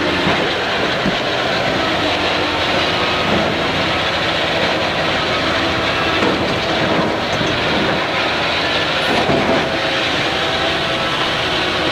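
A heavy vehicle running with a steady, dense mechanical noise.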